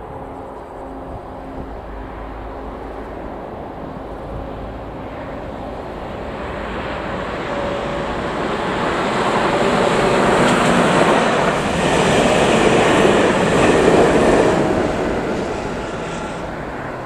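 ÖBB class 1144 electric locomotive hauling an Intercity train of coaches past at speed: the rumble of wheels on rail builds steadily, is loudest in the later part as the train goes by, then fades away near the end.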